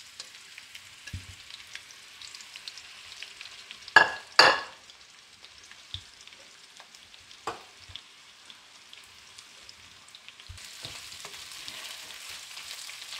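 Sliced onions sizzling in hot oil in a frying pan, a steady hiss. Two sharp clatters come about four seconds in and a lighter knock a few seconds later, and near the end the onions are stirred with a wooden spatula.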